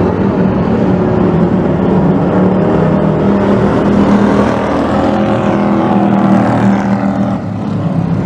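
Dirt-track race trucks' engines running hard around the oval, with trucks passing close by around the middle.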